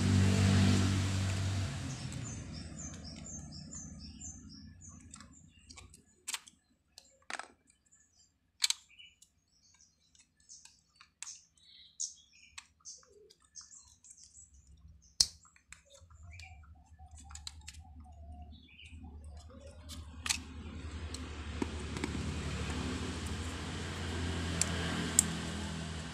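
Sharp clicks and small plastic rattles from the opened angle grinder's switch and housing parts being handled and pulled apart. A low rumble fades away over the first few seconds, and another builds up and holds over the last ten seconds.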